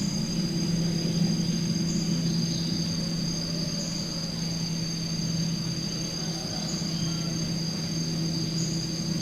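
Tropical countryside ambience: insects trill steadily at two high pitches over a steady low hum, with short high chirps about every two seconds.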